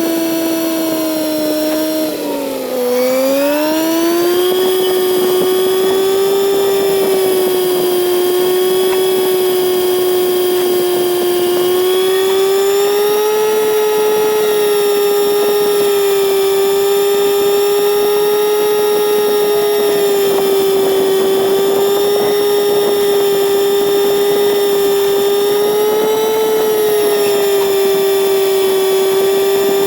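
Kawasaki Z900 inline-four engine running at a steady cruise. About two to three seconds in, its pitch drops and climbs back, then holds nearly level with small rises and falls.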